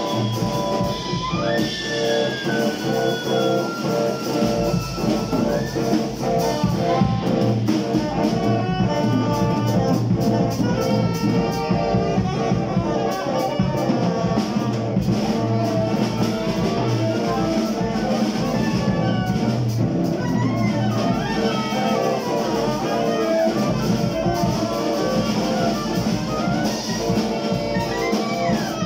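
Live improvised jazz from a small group: saxophones playing long held and sliding notes over electric guitar and a drum kit.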